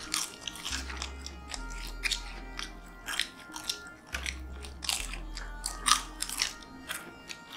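Two people biting into and chewing Jacker potato chips close to the microphone: a string of sharp, crisp crunches throughout. Background music with a low bass line plays underneath.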